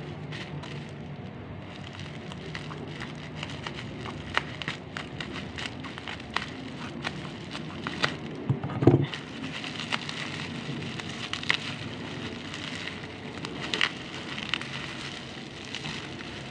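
Plastic bubble wrap crinkling and crackling as hands pull it off a bottle, with many irregular sharp clicks and one louder knock about nine seconds in.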